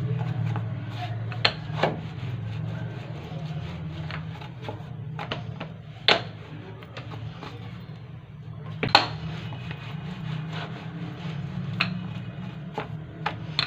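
Wooden rolling pin rolling dough out thin on a plastic cutting board, with a few sharp knocks as the pin or board is bumped, over a steady low hum.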